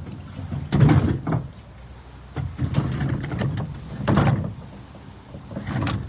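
Demolition debris being handled: a series of knocks and clunks with stretches of scraping, the loudest hit a little after four seconds in.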